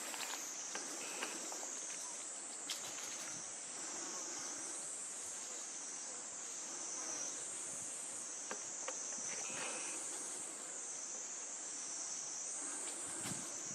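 Steady, high-pitched chorus of insects, swelling and fading every second or two, with a couple of faint ticks.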